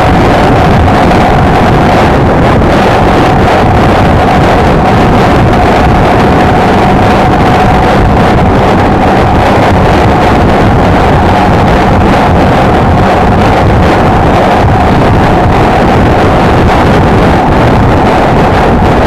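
Honda XLR125R's single-cylinder four-stroke engine running steadily at cruising speed, with loud wind noise on the microphone.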